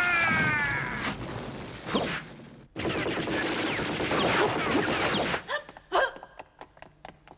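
Cartoon action sound effects: a falling pitched tone at the start, then a long stretch of rapid gunfire, breaking up into scattered sharp clicks and knocks near the end.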